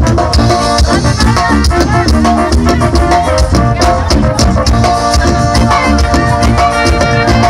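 Loud brass-band music with drums and shaken percussion, playing continuously with a steady beat.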